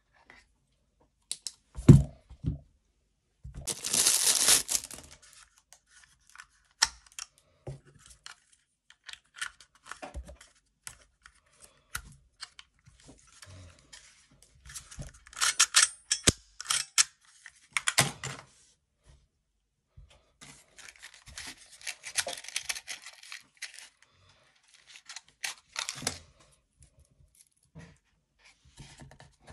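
Hands handling a laser pointer's foam-lined presentation box and its contents: scattered clicks and knocks with short bursts of rustling and scraping, the loudest a knock about two seconds in and a rustle soon after.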